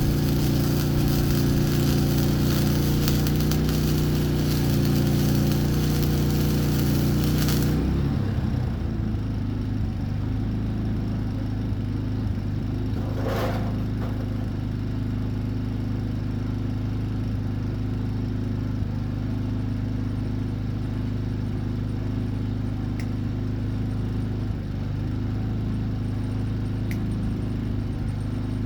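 Electric arc welding on the steel-and-copper billet: a dense crackling arc for about eight seconds that stops suddenly, then a steady low machine hum, with one short burst of arc crackle about halfway through.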